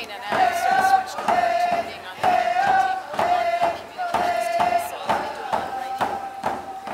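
Coast Salish hand drums beaten in a steady, even rhythm while a group of singers chant a held, wavering melody in unison.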